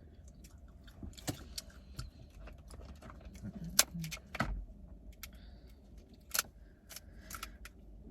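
Seafood shells being cracked and handled while eating: irregular sharp clicks and crackles, a few louder snaps among them, over a low steady rumble.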